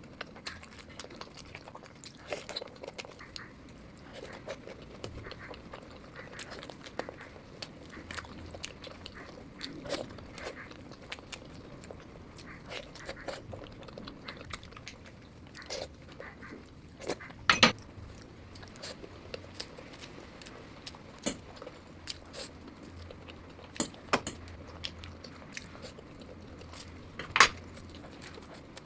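Close-miked chewing and crunching of food: a steady run of wet mouth clicks and bites, with a few sharper, louder crunches, the loudest at about two-thirds of the way through and again near the end.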